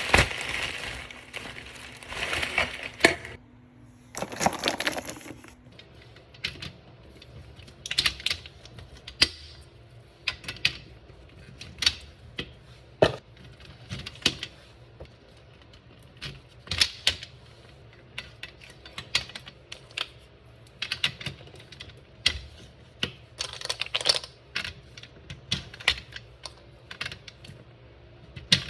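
Crinkling for the first few seconds, then a long run of light, sharp clicks and taps at irregular intervals.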